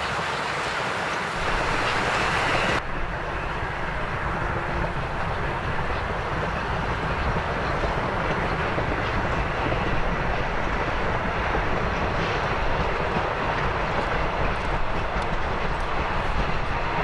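Museum train running past: a small steam locomotive and a diesel locomotive with a rake of old passenger coaches, a steady rumble of engines and wheels on the track. About three seconds in the sound changes abruptly, losing its hiss and turning to a deeper, steadier rumble.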